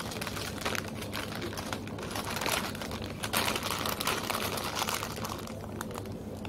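Brown paper sandwich wrapper crinkling and rustling as it is unfolded by hand, a dense crackle of small clicks that grows busiest in the middle. A steady low hum runs underneath.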